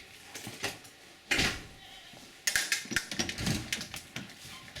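Knocks and scrapes: one loud scrape about a second and a half in, then a quick run of clicks and knocks a second later.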